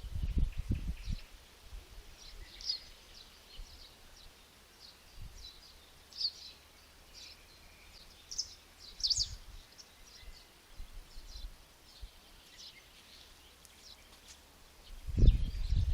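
Small birds chirping in short, scattered high calls. Bursts of low rumble come in the first second and again near the end.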